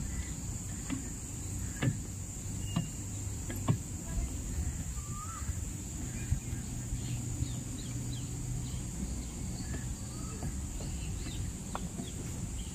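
Footsteps knocking on wooden stairs and planks over a steady, high-pitched insect drone, with scattered short bird calls.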